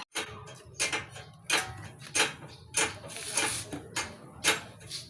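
Metal being struck hard and repeatedly, about seven sharp clanks at an even pace of roughly one every two-thirds of a second, as in hammering on a stuck part of a wheel hub.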